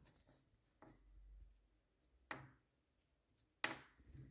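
Near silence with a few faint taps, the loudest about three and a half seconds in.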